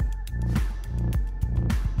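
Background music: an electronic track with a steady beat over a bass line.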